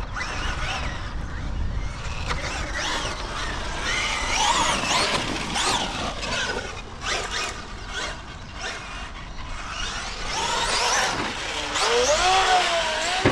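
Traxxas Maxx Slash RC short course truck's brushless motor whining on 6S, rising and falling in pitch as it is throttled up and let off around a dirt track. The pitch climbs and falls again near the end while the truck is in the air off a jump, and a sharp knock follows right at the end.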